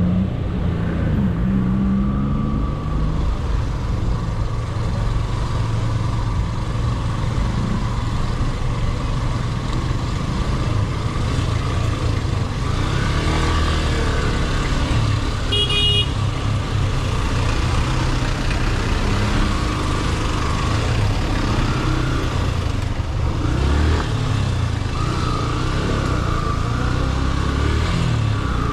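Motorcycle engine running at low speed through slow traffic, its pitch rising and falling with the throttle, over steady road noise. A short high beep sounds about halfway through.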